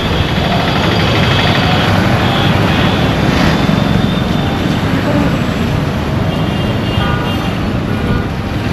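Steady low rumble of busy road traffic, with short vehicle horn toots now and then.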